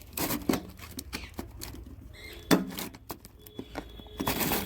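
Packaging and small metal parts of an exhaust turbo whistle kit being handled: a run of irregular clicks and rustles, with one louder knock about halfway through.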